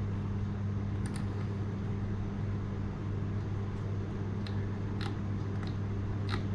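Steady low electrical hum with about half a dozen light, sharp clicks from a computer, scattered and mostly in the second half, like keys or buttons being pressed.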